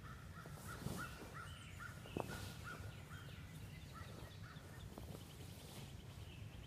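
Birds singing: one bird repeating a short chirp about three times a second in two runs, with fainter, higher chirps from others. A single sharp click a little after two seconds in is the loudest sound.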